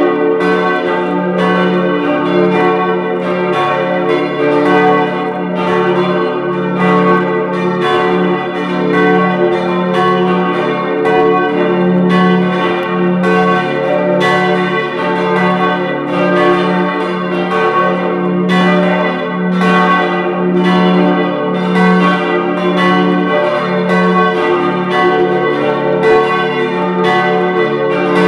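Full peal of the four church bells of a Reformed church, tuned d', f-sharp', a' and b', all ringing together. Their strikes overlap several times a second over a steady hum that never dies away.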